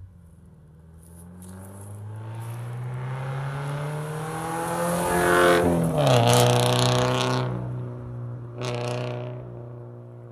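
Straight-piped Scion FR-S's 2.0-litre flat-four accelerating hard past, rising in pitch and getting louder for about five seconds. It drops in pitch about six seconds in as it goes by, then fades as it pulls away, with a short louder burst near the end.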